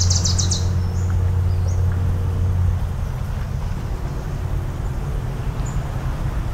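A long, deep, steady foghorn blast that cuts off about three seconds in. It sounds over a low background rumble of surf, with a bird's rapid high trill at the very start.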